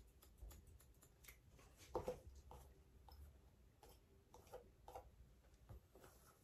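Faint snips of hairdressing scissors cutting dry hair, a string of short irregular clicks, the clearest about two seconds in.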